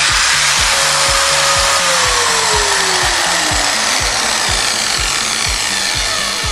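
Bosch biscuit joiner running with a loud, steady whir, a tone in it dropping in pitch a couple of seconds in, over background music with a steady beat.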